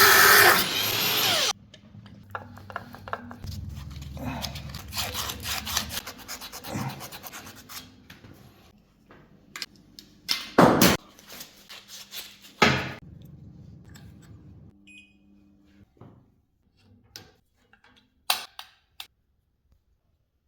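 A power tool runs for about a second and a half, then stops. Tool work follows: quieter rubbing and scraping with several sharp knocks, the loudest around the middle, then fewer knocks as it dies away.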